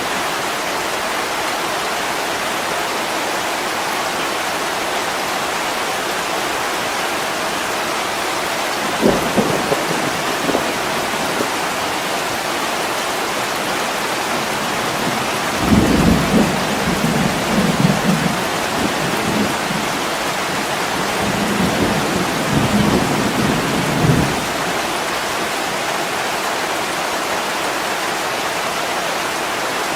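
Heavy rain falling steadily on attic window glass, with low rumbles of thunder: a short one about a third of the way in and a longer, louder rolling one through the middle.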